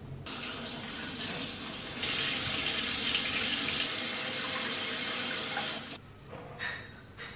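Water running from a tap into a sink, steady and growing louder about two seconds in, then cut off near the end, followed by a couple of brief, faint handling sounds.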